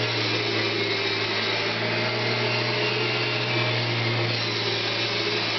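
Vacuum cleaner motor running steadily, a continuous whirring hum with a wide airy hiss over it.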